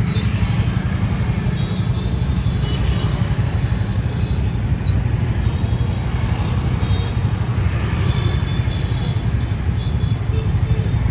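Steady low rumble of a motorbike ride in road traffic, with a few brief high tones over it.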